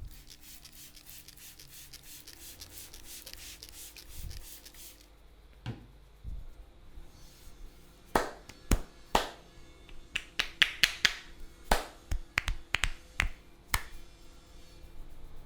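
Barber's hands giving a head massage: fingers rub briskly through the hair and scalp with a fast fine crackle. About eight seconds in, a run of roughly a dozen sharp cracks and snaps begins, several coming in quick bursts.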